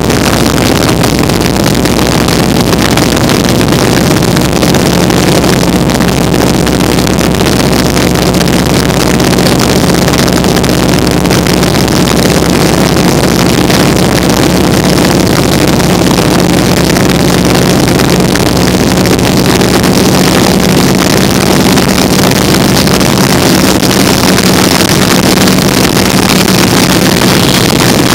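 Vintage open-cockpit biplane in flight: its engine runs at a steady, unchanging drone, mixed with the rush of wind buffeting the microphone in the open cockpit. It is loud and constant throughout.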